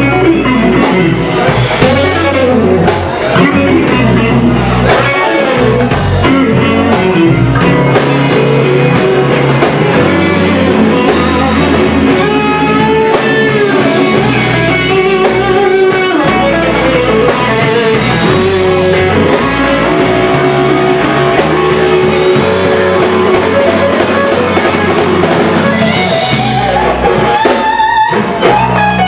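Live blues band playing a slow instrumental blues: an electric guitar lead with bent notes over a drum kit.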